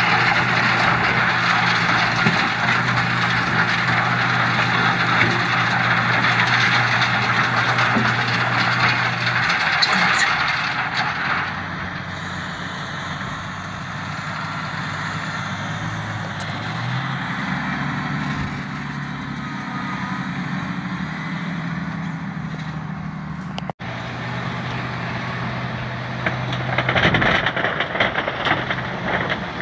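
Tractor-drawn stone picker working a very stony field: stones clatter and ring inside the machine over the Valtra tractor's steady engine. The clatter eases about eleven seconds in, the engine pitch rises a little later, and a new burst of clatter comes near the end as the picker's hopper is raised to tip its stones into a trailer.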